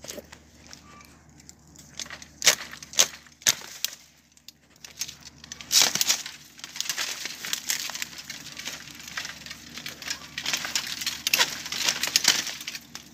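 Long-handled compound-linkage loppers cutting bamboo culms: sharp cracks and snaps as the blades bite and the stems split, a few separate snaps early, then a dense run of crackling and snapping from about halfway, loudest near the end.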